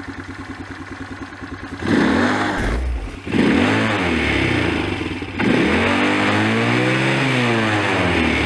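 The SkyBike Hyper 200L ATV's 200 cc single-cylinder four-stroke scooter-type engine with CVT idles with an even pulse, then from about two seconds in revs up and down as the quad climbs over rocks. The revving comes in several passes that are abruptly cut together.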